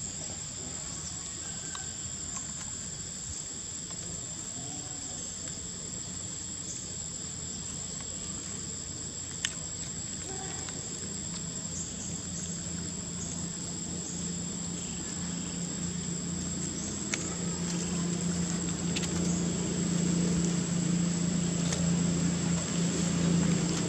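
Steady high-pitched drone of insects in the forest, with a single sharp click about nine seconds in. A low hum grows louder over the second half.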